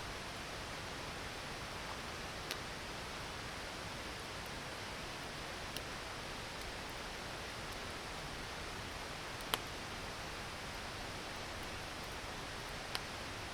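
Steady rushing of a creek, with a wood campfire giving four sharp, isolated pops spaced a few seconds apart, the loudest about two thirds of the way in.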